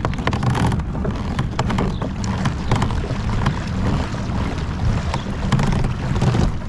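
Wind buffeting an outdoor camera microphone as a low, uneven rumble, with scattered light clicks throughout.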